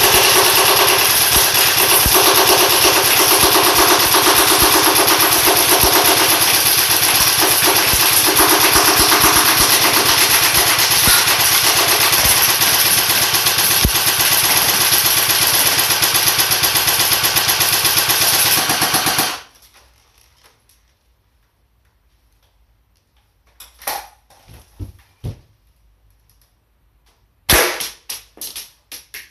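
M4 airsoft electric gun firing on full auto in one long continuous burst of about nineteen seconds, a fast even rattle of shots that stops abruptly. After a pause, two short clusters of clattering knocks come near the end.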